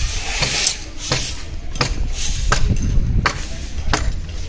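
Sharp knocks at a steady pace, about three every two seconds, like hammering on a construction site. Between them comes the scratchy hiss of a stiff broom sweeping sandy ground.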